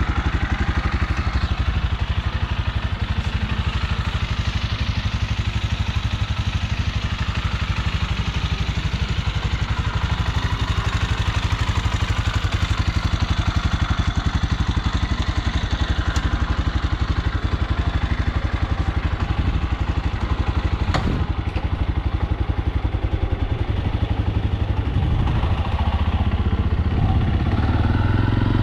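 Venom X-Pect 200cc fuel-injected single-cylinder motorcycle engine idling steadily, with a single click about two-thirds of the way through and the engine note getting a little fuller near the end.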